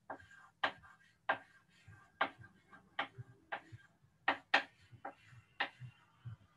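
A run of sharp, irregular clicks or taps, about two or three a second, over a faint steady low hum.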